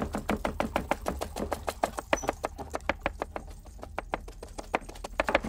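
A chef's knife rapidly chopping carrots on a cutting board: a fast, even run of sharp knocks, about seven a second, that stops suddenly near the end.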